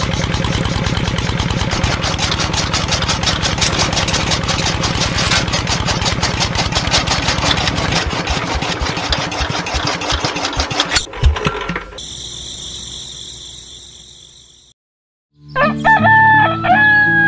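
Small engine running with fast, even pulses, slowing to separate beats and stopping with a knock about eleven seconds in. A bright ringing tone follows and fades out. After a moment of silence, a rooster crows over light music near the end.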